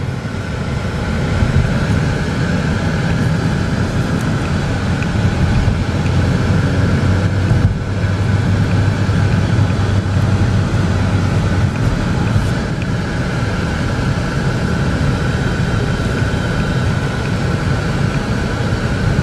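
In-cabin noise of a 2011 Chevy Cruze with a turbocharged Ecotec four-cylinder, cruising at about 45 mph: steady engine drone with tyre and road noise and the air conditioning blowing. The low engine hum drops away about twelve seconds in.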